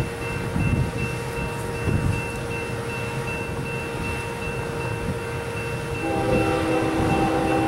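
Distant approaching freight or passenger train, a low rumble, with the locomotive's air horn sounding a steady chord from about six seconds in.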